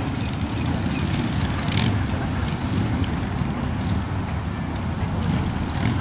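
Low, irregular rumble of wind buffeting the microphone, with road traffic behind it.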